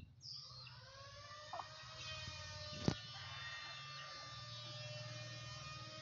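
A faint, steady buzz with many overtones that starts just as speech ends, rises slightly in pitch as it comes in and then holds level. A single sharp click sounds about three seconds in.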